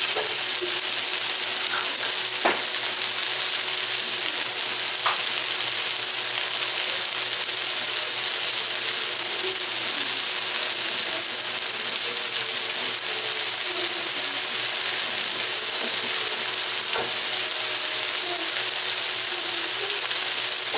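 Cornstarch-coated beef stir-frying in a nonstick wok, sizzling steadily as it browns, with a few sharp pops now and then.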